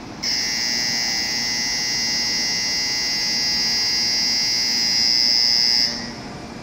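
Shinkansen platform departure bell ringing steadily for about six seconds and then cutting off suddenly, the signal that the train is about to close its doors and leave.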